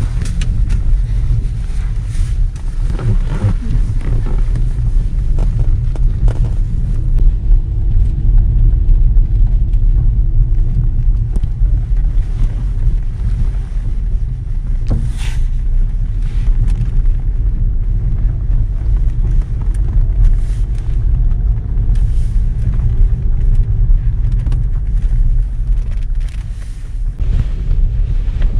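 Steady low rumble of a Toyota car driving on the road, engine and tyre noise heard from inside the cabin, with a brief faint click about fifteen seconds in.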